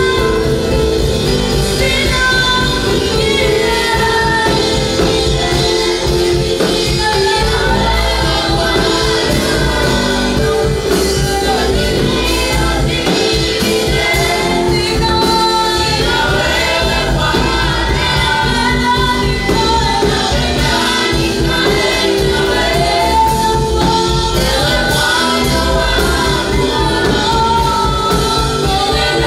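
Gospel choir singing a worship song with band accompaniment; the sung lines rise and fall over steady instrumental backing.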